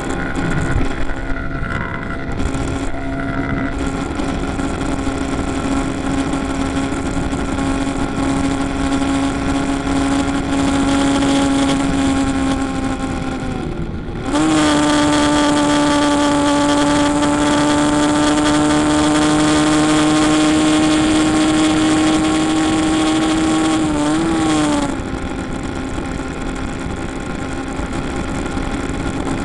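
Suzuki RV125 VanVan's single-cylinder four-stroke engine under way, heard from the moving bike. Its steady note climbs slowly, breaks off briefly about halfway, then runs louder and a little higher for about ten seconds before easing back near the end.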